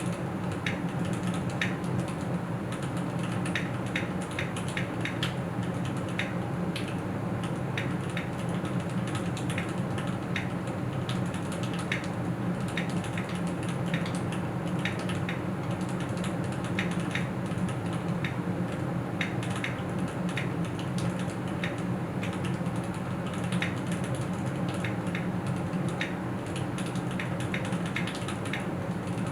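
Keys on a Keychron Q6 aluminium mechanical keyboard with Cherry MX Red linear switches being typed on steadily, an irregular patter of key strokes several a second, over a steady low hum. The sound is not too noisy.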